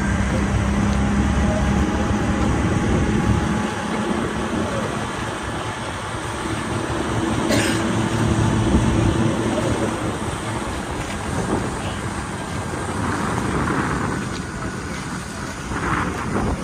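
Motor launch's engine running under way, with wind rushing over the microphone and water noise; the low rumble is heavier for the first few seconds, then eases. A single sharp click about halfway through.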